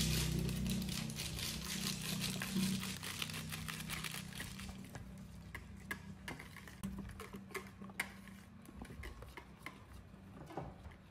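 A spoon stirring and scraping in a mixing bowl of condensed and powdered milk. A rustling hiss fills the first four or five seconds, then come scattered light clinks and taps.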